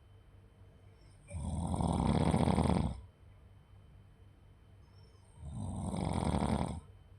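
Snoring: two long snores, each about a second and a half, about four seconds apart, in a slow steady rhythm.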